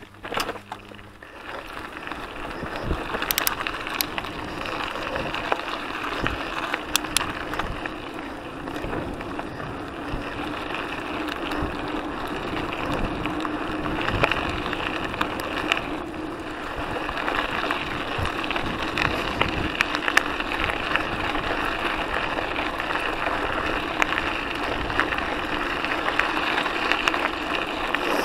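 Mountain bike rolling along a gravel trail: a steady crunching hiss of knobby tyres on loose gravel with frequent small clicks and rattles from the bike, swelling over the first couple of seconds as the bike gathers speed.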